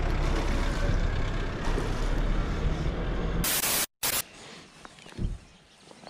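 Steady low rumbling background noise. About three and a half seconds in it gives way to a short burst of TV-static hiss, a video transition effect, which drops out for an instant. Much quieter outdoor ambience follows.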